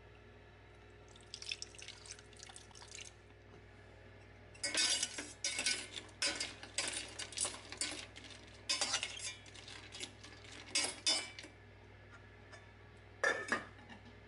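A metal fork scraping and clinking against a stainless steel saucepan while stirring frozen prawns and cod, in irregular clattering strokes for about seven seconds. Near the end a steel pot lid clanks down onto the pan.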